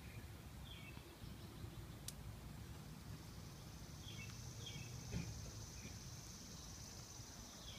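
Faint outdoor ambience: a bird chirping in short, repeated calls, joined about three seconds in by a steady, high-pitched insect buzz. A single sharp click is heard early, and a soft knock comes about five seconds in.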